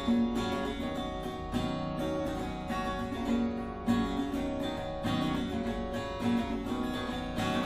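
Music: an acoustic guitar strumming chords, with no singing.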